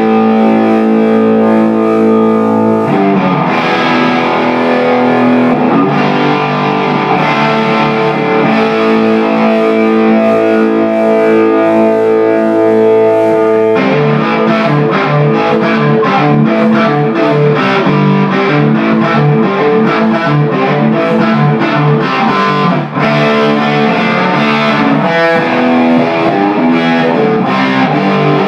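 Electric guitar played through a 10-watt 6AQ5 valve amplifier (GR Amplifiers JKD) with an overdriven tone. Held chords at first, then rock riffs, the playing getting busier about halfway through.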